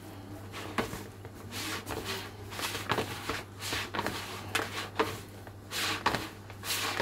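Hands kneading yeast dough in a large plastic bowl: soft squelching, pressing strokes at about two a second, with flour and dough rubbing against the bowl.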